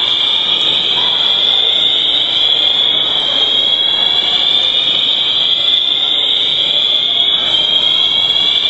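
Mall fire alarm sounding a loud, continuous high-pitched tone without any breaks, heard through the building.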